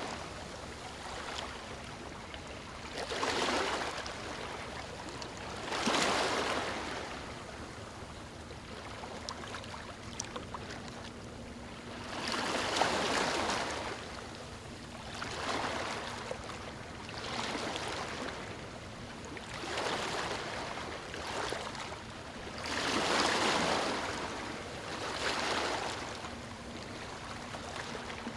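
Ocean waves breaking on a beach: a steady wash of surf that swells as a wave breaks every two to three seconds and then drains away.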